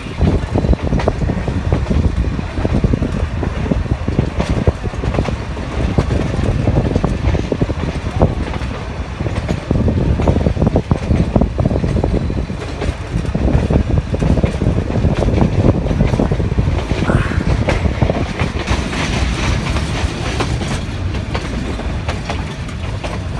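Nilgiri Mountain Railway toy train running on its metre-gauge track: a steady rumble of the moving carriages with clickety-clack of the wheels over the rail joints.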